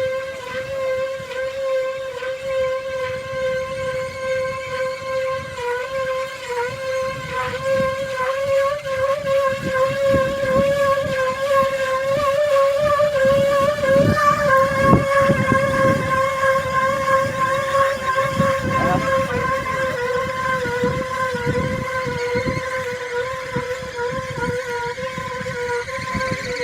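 A motor running at a steady speed, a steady whine with an irregular low rumble beneath it, a little louder in the middle.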